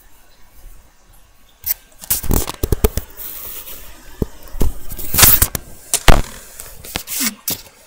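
Handling noise of a webcam being picked up and moved: rustling, scraping and knocking close to the microphone, starting about two seconds in, with the loudest scrapes around two and a half and five to six seconds in.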